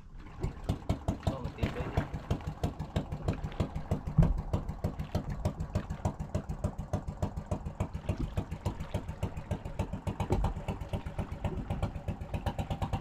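Small single-cylinder engine of a motorized bangka (outrigger boat) starting up and running with a rapid, even putter, with one louder knock about four seconds in.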